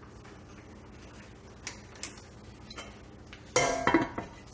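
Blue enamelled steel (graniteware) lid set onto its stockpot. A few faint clicks, then about three and a half seconds in a loud ringing metal clank with a second clink just after, as the lid seats on the rim.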